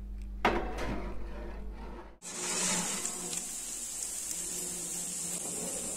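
A metal roasting tray handled at the oven, with a knock about half a second in. Then a sudden switch to a steady, high sizzling hiss from the hot tray of baked chicken rolls and potatoes just out of the oven.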